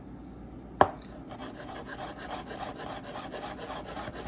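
A garlic clove being grated on a fine grater in quick scraping strokes, several a second. A sharp knock about a second in sets the strokes going.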